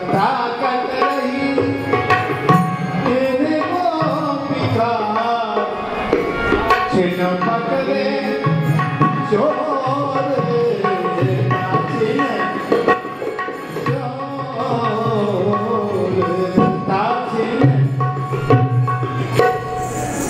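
Indian devotional music: tabla drumming a steady rhythm under a wavering melodic line.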